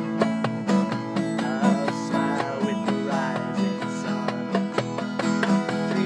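Acoustic guitar strummed in a steady rhythm, with a man singing along.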